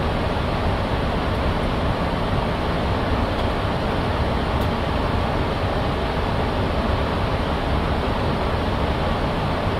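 Steady flight-deck noise of a Boeing 737-800 in flight: an even rush of air with engine and air-conditioning noise, unchanging throughout.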